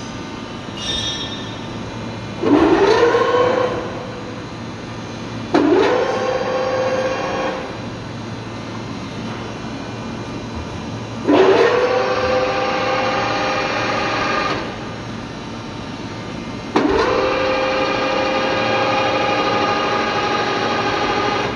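Table feed drive of a TOS Kuřim FGS 32-40 knee-type milling machine starting four times, each start a quickly rising whine that settles into a steady geared running tone before cutting off. Each run is longer than the one before, and a low steady hum runs underneath.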